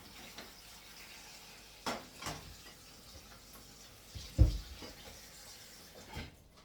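Water running from a kitchen tap, with pots and dishes knocking now and then; the loudest knock, a heavy thud, comes about four and a half seconds in.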